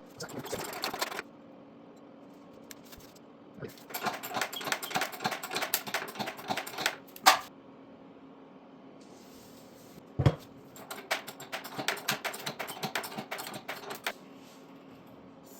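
Runs of rapid metallic clicking from a bottle jack and ratchet-strap rig straightening a bent three-wheeler frame: one short run at the start, then two longer runs of several seconds each, with a single sharp knock about ten seconds in.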